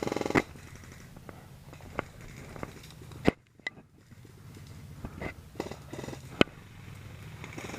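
Airsoft gunfire: a short rapid burst at the very start, then single sharp pops every second or few, over a steady low rumble.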